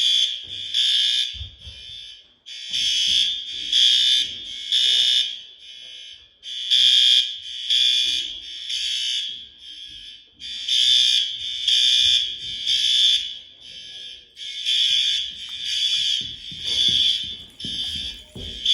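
A building fire alarm sounding under test in the three-pulse evacuation pattern. It gives three loud, high-pitched blasts about a second apart, then a pause, and the cycle repeats about every four seconds. Fainter blasts fall in the pauses.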